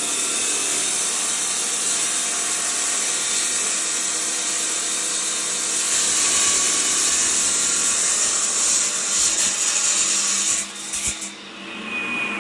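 Power tool cutting into Tiffany stone, a loud steady high-pitched grinding that stutters and stops near the end.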